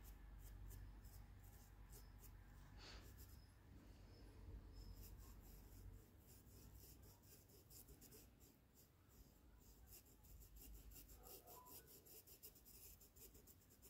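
Faint, repeated scratching of a paintbrush stroking and dabbing paint onto fabric, over a low steady hum.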